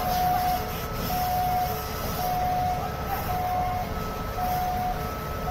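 Emergency vehicle's two-tone siren alternating between two notes, about one cycle a second, over a low rumble.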